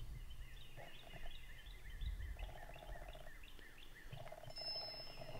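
Faint bird song: a bird repeating a short rising-and-falling note about three times a second. Two short buzzy stretches of a lower sound come in the middle and near the end.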